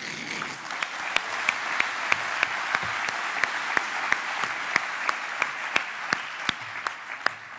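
Audience applauding, a dense patter of many hands, with one clapper's sharper claps standing out at about three a second; it fades out near the end.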